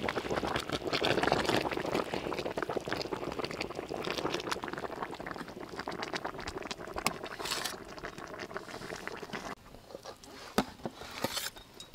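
Curry simmering and bubbling around whole chickens in a pot, with the scrape and clicks of a metal utensil lifting them out. Near the end it turns quieter, leaving a few sharp clicks of metal against a steel tray.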